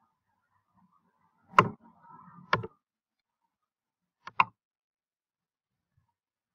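Computer mouse clicking: three separate sharp clicks a second or two apart, the last a quick double click.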